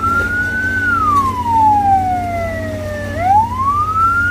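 Ambulance siren in a slow wail: the tone falls over about two and a half seconds, then rises again about three seconds in, with a fainter second sliding tone above it. A steady low engine hum runs underneath.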